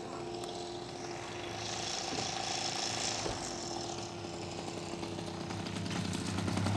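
Four-stroke glow engine (OS 70) of a radio-controlled scale Blériot XI model running as the model comes in to land, growing a little louder toward the end.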